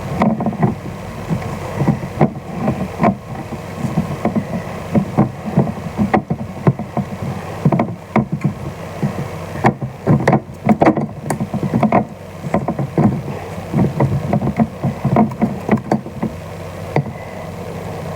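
Kitchen clatter: many irregular taps and knocks of utensils and containers while sauce ingredients are added and mixed, over a steady low hum.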